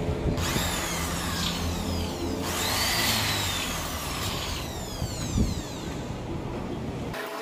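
Road traffic: two vehicles pass one after the other, each one's noise swelling and fading over a couple of seconds, followed by a single light knock about five seconds in.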